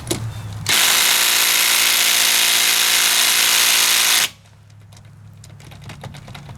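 Ridgid subcompact 3/8-inch cordless impact wrench hammering steadily on a car lug nut that is tighter than the others, running for about three and a half seconds and then stopping abruptly.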